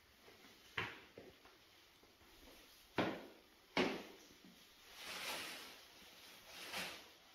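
A few sharp knocks, then a large bag rustling as hands open it and rummage inside.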